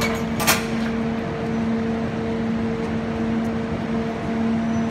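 Steady mechanical hum with a sharp metallic clack about half a second in, from the tailgate latch of a tipping farm trailer being knocked open.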